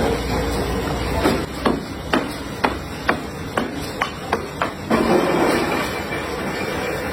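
Matchmaking factory machinery running steadily, with a quick series of about ten sharp knocks of a mechanism working, roughly two or three a second.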